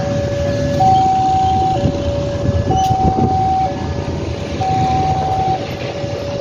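Railway level-crossing warning alarm sounding its two-tone signal, a high note and a low note alternating about once a second, over a low rumble of traffic.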